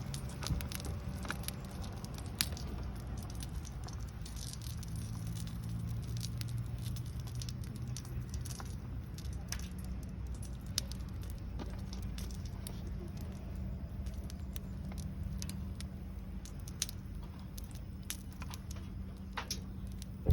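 Small campfire crackling, with scattered light ticks and pops over a steady low hum.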